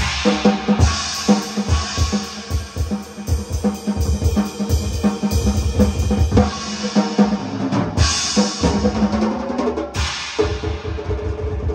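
Music led by a drum kit: a quick run of kick and snare strokes, with cymbal crashes every couple of seconds, over sustained pitched notes.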